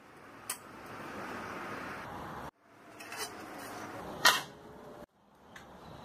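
Light clicks and knocks from a steel ruler and a rubber-coated steel U-lock being handled on a metal sheet on a workbench, the sharpest knock about four seconds in, over steady room hiss. The sound cuts out abruptly twice where shots are joined.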